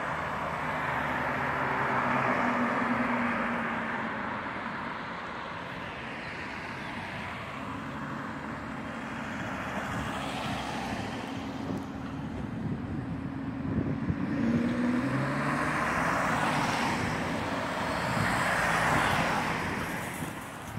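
Car park traffic: car engines running and tyres rolling, the noise swelling and fading several times as vehicles pass.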